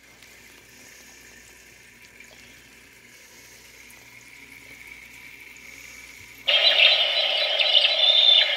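Faint steady sound like trickling water. About six and a half seconds in, a nature-sound machine abruptly starts playing a loud recorded soundscape through its speaker.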